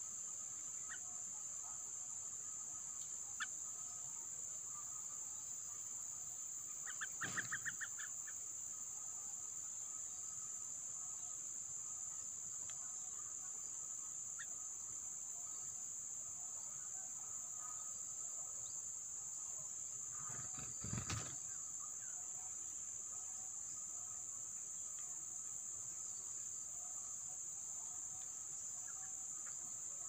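Steady high-pitched insect drone with a fainter steady insect tone beneath it. About seven seconds in comes a quick run of about eight clicking notes, and about two-thirds of the way through a brief low rustling thump.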